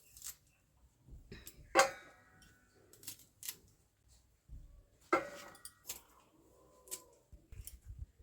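Bottle-gourd stems being cut with a blade: a string of sharp crisp snaps and clicks at uneven intervals. The two loudest, about two and five seconds in, each ring briefly like metal.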